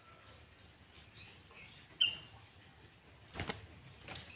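Faint, short bird chirps: one sharp chirp about two seconds in and a couple of high notes just after three seconds. Near the end come two or three brief sharp rustling knocks.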